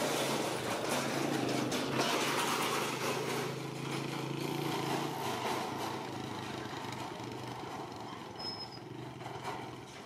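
A vehicle engine running with a steady low hum, growing gradually fainter as it moves away.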